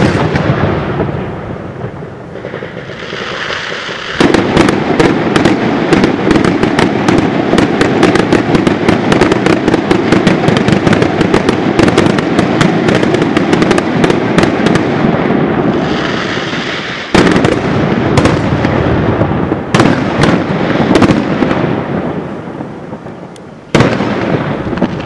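Fireworks going off: an aerial shell bursts with a loud bang, followed by dense crackling made of many rapid sharp cracks. Fresh bangs come about seventeen seconds in and again near the end, each followed by more crackling.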